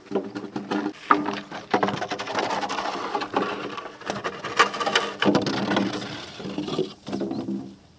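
Long bamboo poles dragged and shifted about: a rough scraping clatter with many hollow wooden knocks as the poles bump together and against the ground, easing off near the end.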